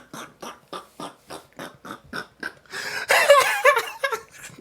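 A person's voice in short choppy bursts, about four a second, then a louder stretch of voice about three seconds in.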